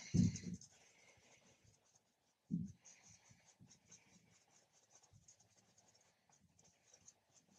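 Bristle paintbrush scrubbing and dabbing acrylic paint onto a canvas, a run of faint, scratchy strokes. Two louder low thuds come at the very start and about two and a half seconds in.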